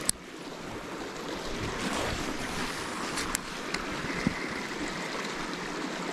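Steady rushing outdoor noise of wind on the microphone and moving creek water. A sharp click comes as it begins, and a couple of light clicks come about three and a half seconds in.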